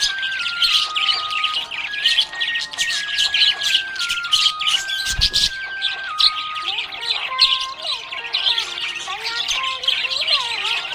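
Pet budgies chirping and chattering in a dense, continuous stream of rapid high chirps, over background music with a stepped melody. A brief low thump about five seconds in.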